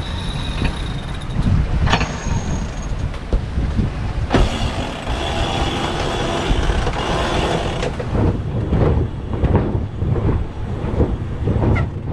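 Wind buffeting the microphone and water rushing along the hull of a sailing yacht moving fast under sail. About four seconds in, a louder hiss sets in for some three and a half seconds.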